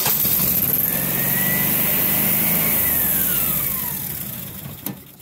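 Generac standby generator engine running, having started with its battery ground clamped tight, with a whine that rises slightly for the first few seconds. The whine then falls in pitch and the noise fades over the last second or two as the engine slows down.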